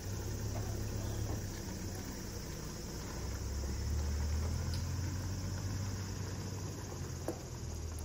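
Steady low engine rumble, like a vehicle idling, that begins abruptly at the start, with insects chirring faintly behind it.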